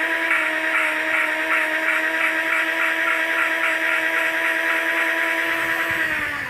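Electric drill spinning a valve against its seat in lapping paste: a steady motor whine that speeds up at the start and winds down and stops near the end, with a rhythmic grinding about three times a second as the valve is worked back and forth.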